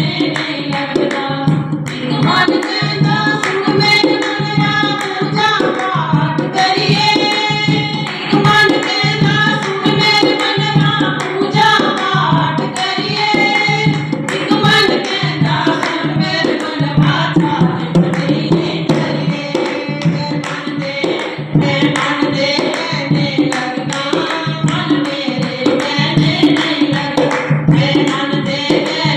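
Devotional bhajan sung by a voice over steady hand-drum accompaniment with an even beat.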